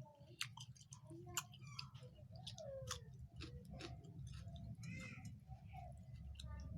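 Close-up eating sounds: chewing with many quick wet mouth clicks and smacks, faint, over a steady low hum.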